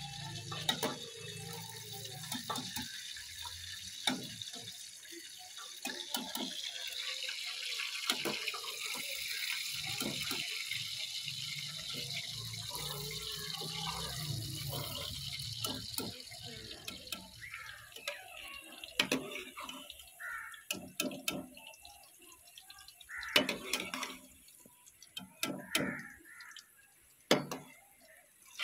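Meat pieces sizzling as they fry in hot ghee in a steel wok, with clinks and scrapes of a metal ladle stirring. About 17 s in, the sizzle dies down, leaving separate ladle knocks and scrapes.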